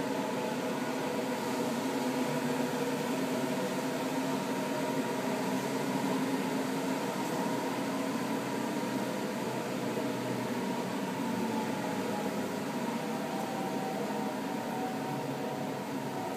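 Steady electric motor hum with a hiss of moving air, running evenly throughout, from the spray-painting equipment.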